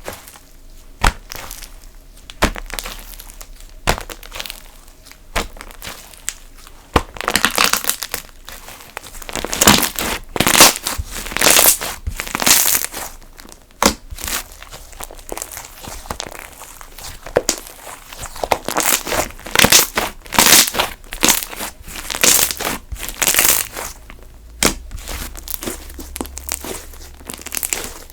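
Slime being squished and kneaded by hand, making sticky popping clicks and crackles. The pops come singly at first, and after about seven seconds they run together into dense bursts of crackling.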